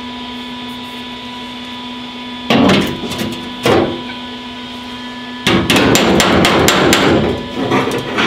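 Body hammer striking the steel quarter-panel patch of a 2004 Dodge Dakota against a curved dolly held behind it: two single blows about a second apart, then a quick run of rapid taps.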